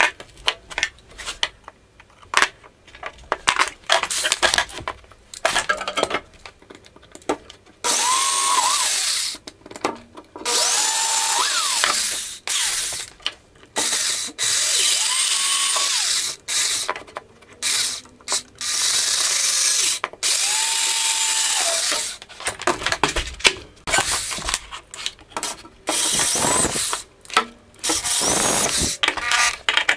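Cordless drill working into wooden angle brackets in a run of bursts a second or two long, the motor whining up at the start of each. Before them come scattered clicks and light knocks of handling.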